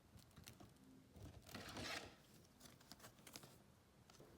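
Near silence with faint handling of trading cards: a soft swish about one and a half seconds in and a few light ticks.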